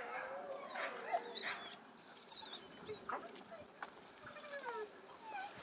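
Several young harnessed draught dogs whining and giving short yelps, with high wavering, gliding whines from more than one dog, the eager sound of a team waiting to be let go.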